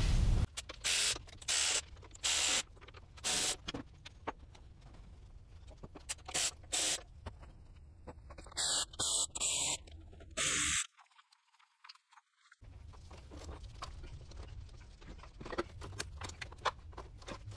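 A series of short hissing bursts, about a dozen, each under a second long and spaced irregularly.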